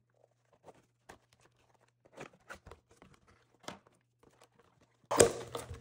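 Thin clear plastic takeout-container lid being cut and pierced with a kitchen knife for drainage holes: scattered small clicks and taps, then loud crinkling of the plastic as it is handled, starting about five seconds in.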